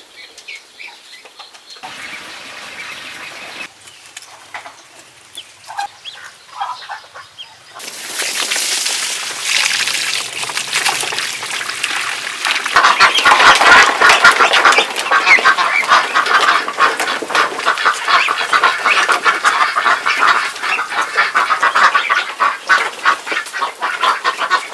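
A flock of ducks calling, many short overlapping calls. Sparse and quiet at first, the chorus swells about eight seconds in and becomes loud and continuous from about twelve seconds in.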